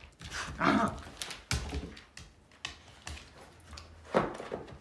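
Akita dog vocalising twice, once about half a second in and again near the end, with knocks and rustles from the dogs moving on the bed in between.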